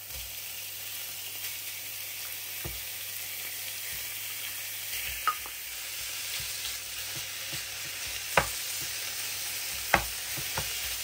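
Minced beef sizzling in hot olive oil and chopped onion in a frying pan, a steady hiss that grows louder as the meat goes in. A wooden spoon knocks against the pan four times as the meat is spread and stirred.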